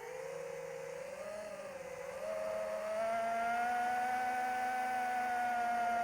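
Electric motor and propeller of an AtomRC Dolphin RC plane whining in flight. The pitch wavers, then steps up about two seconds in and holds steady, louder.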